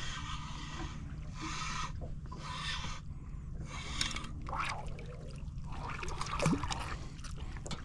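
A small fish being unhooked by hand: water trickling and dripping, with short hissy splashes and scattered clicks of handling, over a steady low hum.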